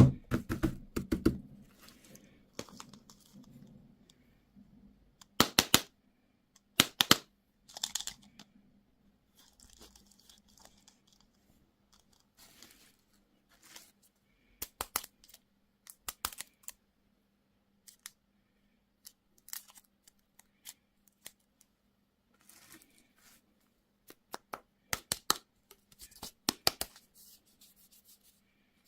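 Candy and toy packaging being torn open and crinkled: irregular clusters of sharp crackles with quiet gaps between them, the loudest clusters at the start, around a quarter of the way in, and near the end.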